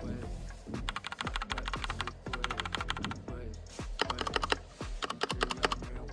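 Fast typing on a Nexy Time 75 mechanical keyboard with AKKO Pink switches and SA-profile double-shot keycaps: rapid runs of keystrokes broken by short pauses, over background music.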